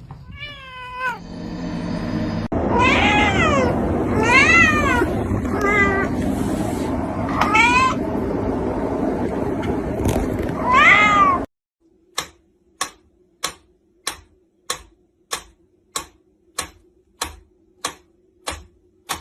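A cat meowing repeatedly: about six drawn-out meows that rise and fall in pitch, over a noisy background. After an abrupt cut, a run of sharp, evenly spaced clicks, a little under two a second, over a faint steady hum.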